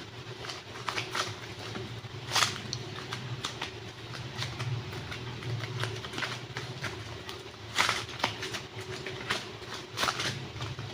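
Close-up handling of air-dry clay and its packaging: irregular crackles and clicks. The sharpest come about two seconds in, near eight seconds and near ten, over a low steady hum.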